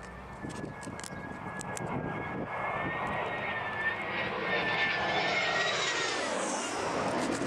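Jet airliner on approach: engine noise with a thin high whine, growing louder, and a whoosh that sweeps down in pitch about six seconds in as it comes close.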